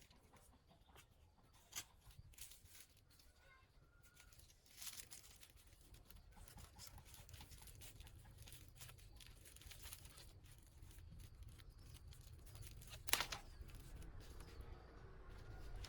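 Faint rustling and scattered light clicks and knocks, with one sharper knock about thirteen seconds in and a low rumble building toward the end.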